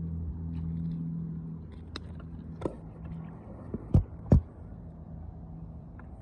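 Steady low hum of a passing engine, fading after about three seconds, with a few sharp clicks and knocks, the two loudest close together about four seconds in.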